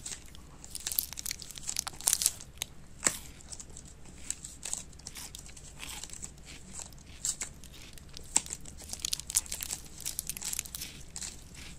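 A lump of green slime being squeezed, stretched and pulled apart in the hands, making irregular soft crackling and clicking squelches, a little louder around two and three seconds in.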